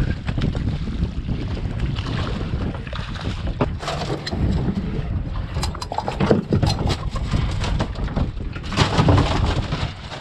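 Wind buffeting the microphone on a boat over open water, with a run of sharp knocks and clatters in the middle as a small bonnethead shark is handled with pliers over a deck hatch.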